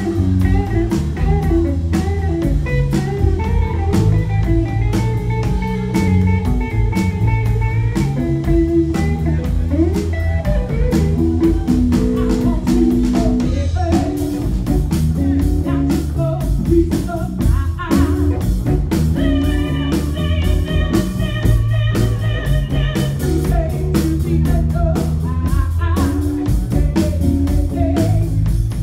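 Live blues band playing: guitar, bass and drum kit over a steady beat, with a woman singing.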